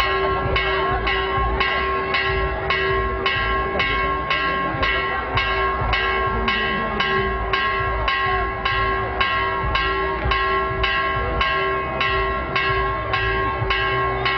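A church bell rung steadily and fast, about two strikes a second, its ringing tone carrying on between strikes.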